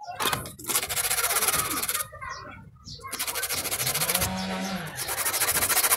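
Sandpaper rubbed back and forth in quick strokes over the dirty metal contacts of a car window switch, cleaning them, in three bursts with short pauses between.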